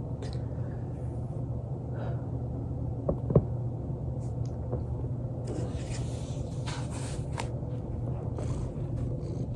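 Joint cracking: two quick pops a little after three seconds in, the second much louder, over a steady low hum. Short hissy rustles follow a few seconds later.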